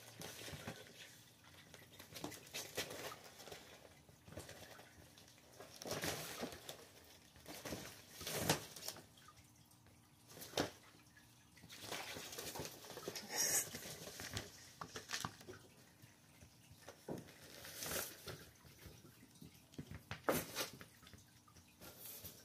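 Crinkly fabric cat play tunnel rustling and crunching in irregular bursts as kittens scramble through and over it, with a few sharp clicks.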